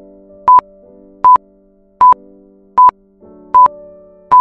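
Quiz countdown timer beeping: short, sharp electronic beeps at one pitch, about one every three-quarters of a second, six in all. Soft synthesizer background music with held chords plays underneath.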